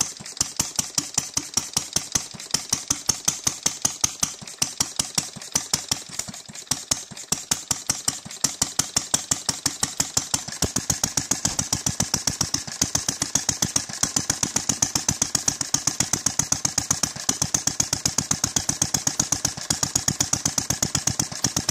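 Briggs & Stratton single-cylinder small engine with a transparent cylinder head running, each firing stroke a sharp, evenly spaced pop. The firing quickens about halfway through as the engine speeds up.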